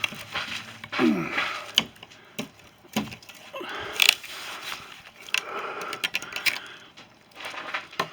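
Broom scraping and knocking against a thick sheet of roof-edge ice, with sharp cracks as the loosened ice is worked free: a run of irregular knocks and two longer scraping stretches in the second half.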